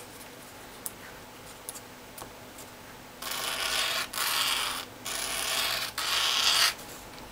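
Bundled ends of plastic fibre optic cable rubbed back and forth on wet and dry abrasive paper to polish them: four rubbing strokes in quick succession in the second half, after a few small clicks of handling.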